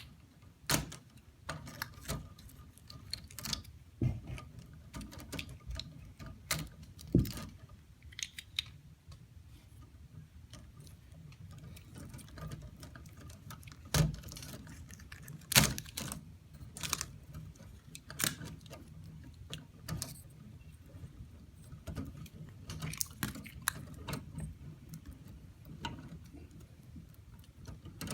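Plastic wire nuts being twisted off the old smoke detector plug's wire splices and the wires being handled: scattered small clicks, taps and rubbing, irregular and uneven in strength, over a low steady hum.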